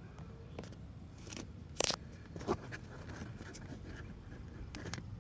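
Scattered light clicks and scrapes of handling, the two loudest about two seconds in, over a steady low hum.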